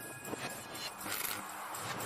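Whoosh transition sound effects of an animated subscribe-and-notification-bell outro: several short swishing swells in quick succession.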